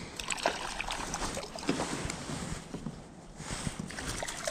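Rod, reel and kayak handling noise while a small fish is brought in: scattered clicks and knocks over a steady low rumble.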